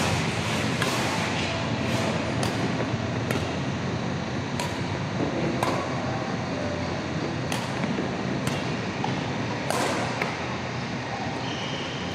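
Badminton rackets striking a shuttlecock back and forth in a rally: about ten sharp cracks, roughly one a second, over a steady background hiss.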